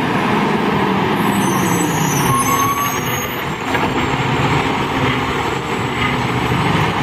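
McNeilus automated side-loader garbage truck running at the curb as its arm reaches out for a cart, with a brief high squeal about two seconds in.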